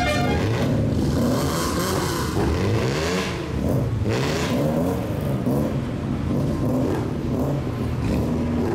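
Classic car engine being revved over and over through a loud exhaust, its note rising and falling in repeated blips that overlap one another.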